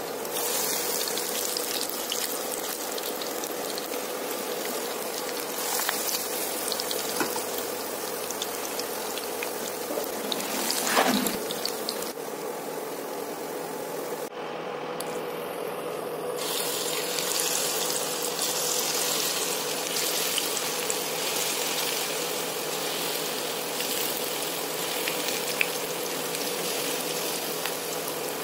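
Batter-coated pakoras deep-frying in hot oil, a steady sizzle of bubbling oil.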